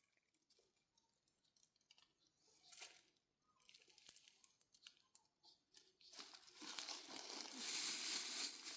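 Faint rustling and crinkling with small scattered clicks. About six seconds in it becomes a louder, steady rustle.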